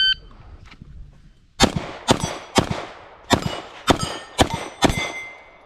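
Shot timer beep, then a string of about seven rapid gunshots over roughly three seconds starting about a second and a half later, each followed by the ringing clang of a struck steel target plate.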